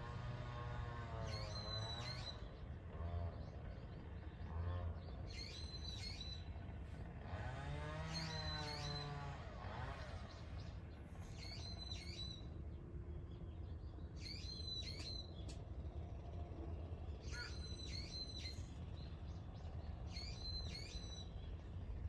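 Short high bird chirps repeating every two to three seconds, with lower gliding hoot-like tones now and then underneath.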